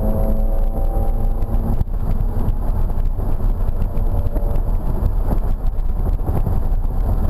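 BMW E46 M3's straight-six engine heard from inside the cabin at track speed, mixed with tyre noise on the wet track. The engine note is steady for the first couple of seconds, breaks briefly about two seconds in, then gives way to a rougher, denser rumble.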